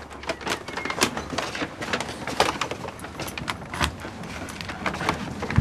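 Irregular light clicks, knocks and rustles of a person handling a paper shopping bag at a front door, over a faint steady low hum.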